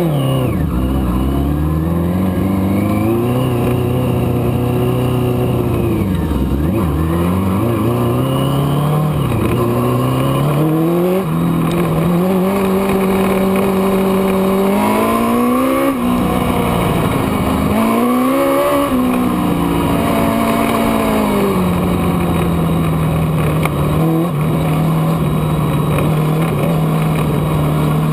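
Race car engine running under load, its pitch climbing and dropping again and again as it accelerates and lifts. The engine lacks snap because its fuel pump is dying.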